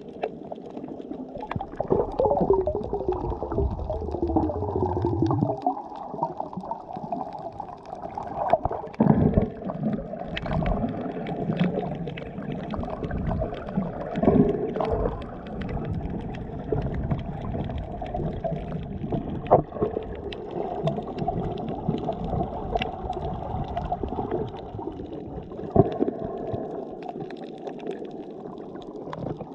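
Muffled underwater sound recorded by a submerged camera: a continuous wash of water with gurgling and bubbles. A few falling tones come between two and five seconds in, and sharp knocks and clicks are scattered through it.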